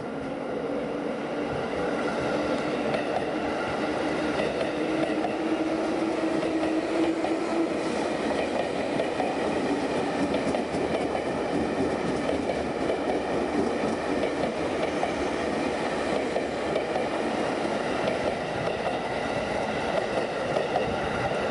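A JR East 251 series Super View Odoriko electric train pulls away and runs past close by, getting louder over the first couple of seconds and then holding steady. Its motors give a whine that climbs in pitch over the first seven seconds or so as the train gathers speed, under a steady running noise of wheels on rail.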